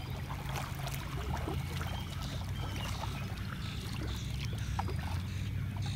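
Kayak paddle blades dipping and splashing faintly in calm water as the kayak is paddled away, over a steady low hum.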